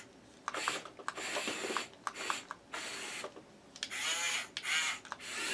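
Small electric motors and plastic gearboxes of a Huina 1510 toy RC excavator whirring in short stop-start bursts with clicks, the pitch sweeping up and down about four seconds in.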